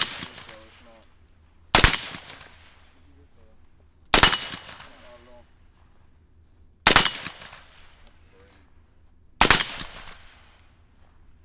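AR-15-style rifle fired in slow single shots: five shots about two to two and a half seconds apart. Each is a sharp crack that trails off.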